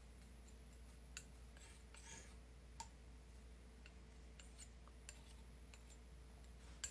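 Near silence with a steady low hum, broken by a few faint clicks and a soft scrape of a metal palette knife on the palette as oil paint is mixed.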